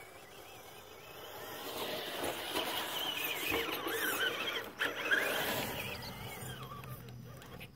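Axial AX10 Deadbolt RC rock crawler driving, its 20-turn brushed motor and metal-geared transmission whining in a pitch that wavers up and down with the throttle, over the scrabble of its tires on the course. It is loudest from about two to five seconds in.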